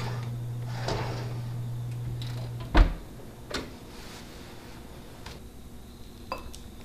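A metal cake tin slid onto an oven rack with light scraping, then the oven door shut with a loud thump about three seconds in. A low steady hum cuts off at the moment the door closes. A few light clicks follow.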